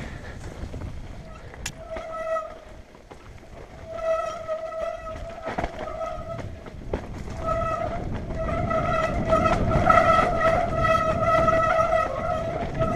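Mountain bike disc brakes howling with a steady high-pitched tone in repeated stretches, the longest from about seven seconds in to the end, over the rattle and tyre noise of the bike riding down a rough, rocky trail.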